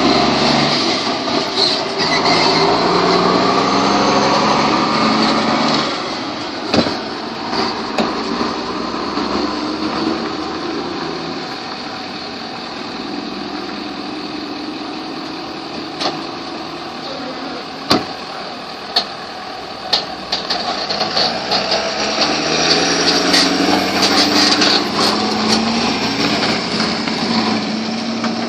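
A heavy diesel truck towing a manufactured home section drives past, its engine loud at first and then fading away. A few sharp knocks come in the middle, and later a pickup towing a flatbed trailer approaches and passes, its engine growing louder.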